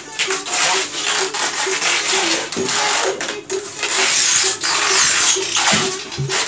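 Rasping, scraping noise of styrofoam boxes being handled and sealed with packing tape. It comes in several long strokes with short breaks between them.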